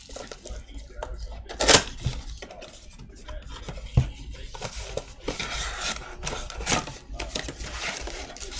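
Shrink-wrapped cardboard blaster boxes of trading cards being handled and shuffled, knocking and clattering against one another. The sharpest knock comes about a second and a half in, and a dull thump follows at four seconds.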